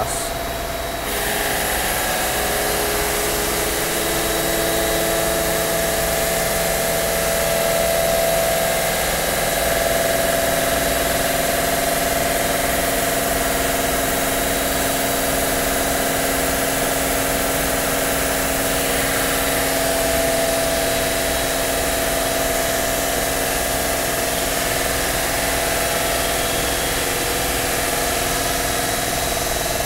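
Park Voyager CNC bridge saw's water-cooled blade cutting lengthwise through a stone slab: a steady whine over a grinding hiss, its pitch settling within the first few seconds and then holding even.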